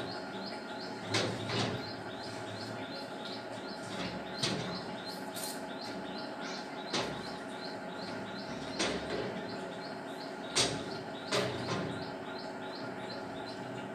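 Sharp knocks and clicks every second or two, like hands and feet bumping a door frame and metal grille gate. A small bird chirps in a quick repeated series of high notes through the middle, over a steady hum.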